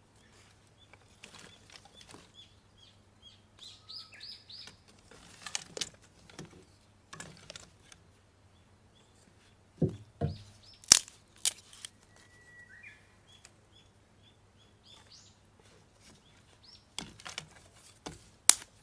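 Small birds chirping, one repeating a short high note over and over. Several sharp cracks, loudest about halfway through and again near the end, break in over the birdsong.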